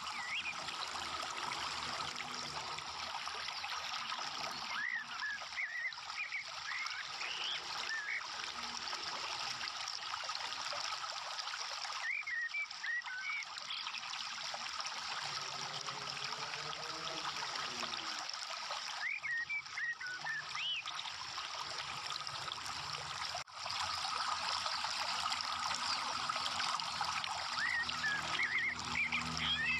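A steady trickle of water, with short high bird chirps a few times.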